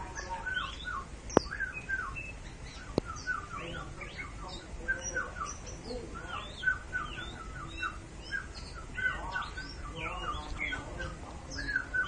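Caged oriental magpie-robin singing its hard-voiced ('mbesi') display song, a rapid, varied run of short chirps, trills and whistles. A couple of sharp clicks cut through, about a second and a half and three seconds in.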